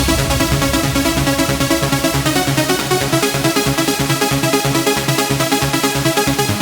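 Electronic dance music with a fast, steady pulsing beat and synth chords, no vocals.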